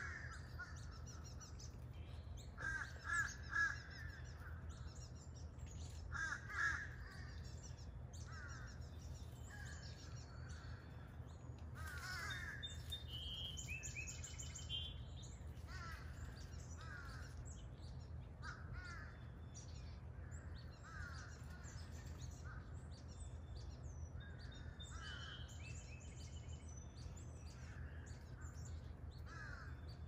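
Backyard birds calling: a loud, harsh call three times in quick succession about three seconds in and again near seven seconds, with short repeated chirps and a few higher whistles throughout, over a steady low hum.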